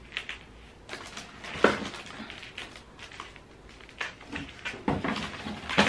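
A paper shopping bag rustling and crinkling as baby clothes are pulled out and handled. Irregular light clicks run through it, the sharpest about a second and a half in.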